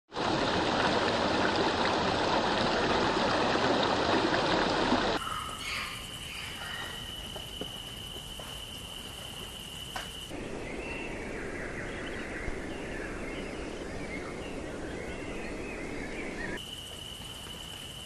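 Nature soundtrack that changes abruptly every few seconds. It opens with a loud, steady rush of running water for about five seconds, then drops to quieter outdoor ambience with a steady high-pitched tone. From about ten seconds in there are scattered bird chirps, and the steady tone comes back near the end.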